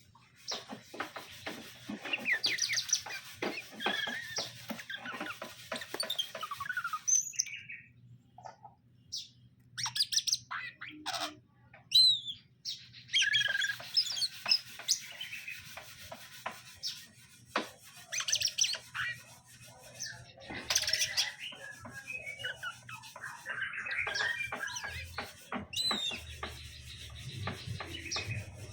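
Cucak ijo (green leafbird) singing in bursts of rapid, jumbled chirps and warbles, broken by short pauses and scattered clicks, over a faint steady low hum.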